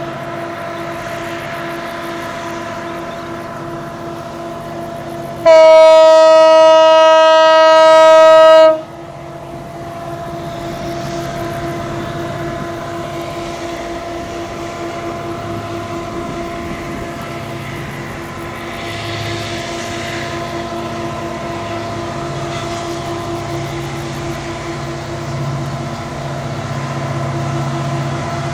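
Diesel-electric locomotive approaching with its engine running steadily, sounding one long horn blast of about three seconds about five seconds in. The engine grows slightly louder near the end as it comes closer.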